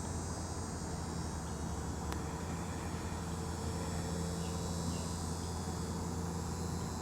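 Steady high-pitched insect chorus, crickets or similar chirring without pause, over a low steady rumble.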